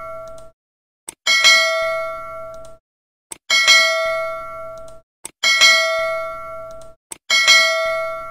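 Notification-bell sound effect from a subscribe animation: a short click, then a bright ding that rings and dies away. The ding repeats four times, about two seconds apart.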